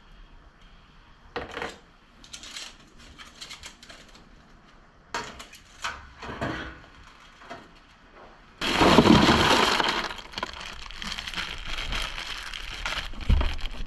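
A few light metal clinks of tongs against a stainless steel pot, then, about two-thirds of the way in, a sudden loud rush of ice cubes poured over cooked mud crabs, rattling and settling for several seconds.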